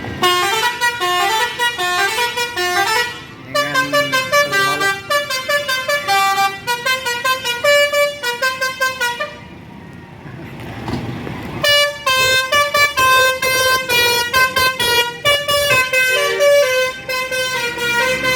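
Bus 'telolet' multi-tone air horn playing a quick tune of short stepped notes, stopping for a couple of seconds about halfway through, where only noise is heard, then playing again to the end.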